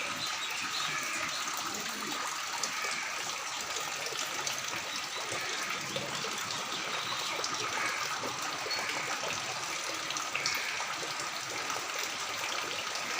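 Floodwater flowing and gushing steadily.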